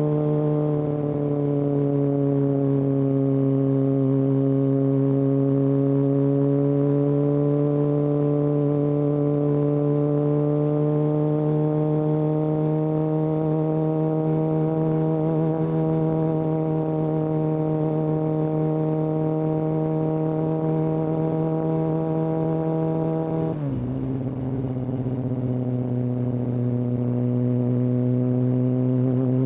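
Kawasaki ZX-6R's inline-four engine through a Hindle aftermarket exhaust, riding under steady throttle with a drone that climbs slowly in pitch. About three quarters of the way through the pitch drops suddenly on an upshift, then starts climbing again.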